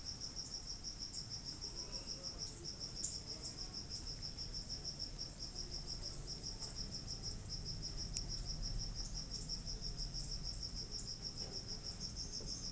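Insect chirping: a steady, fast train of high-pitched pulses, several a second, over a faint low hum.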